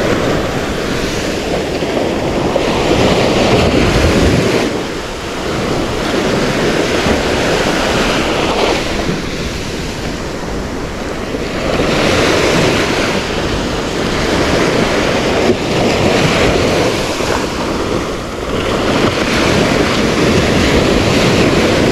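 Sea waves breaking and washing along the shore, surging and easing every few seconds, with wind buffeting the microphone.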